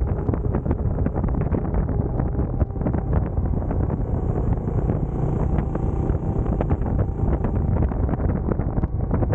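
Heavy wind buffeting on the microphone of a moving motorcycle, with the Benelli Imperiale 400's single-cylinder engine running underneath it.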